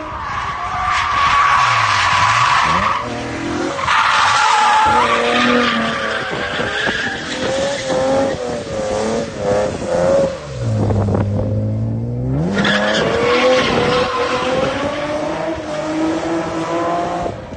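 Nissan 370Z's 3.7-litre V6 revving hard, its pitch rising and falling as the car drifts, over loud tyre squeal from the rear tyres spinning and sliding. The squeal cuts out briefly about twelve seconds in, then returns.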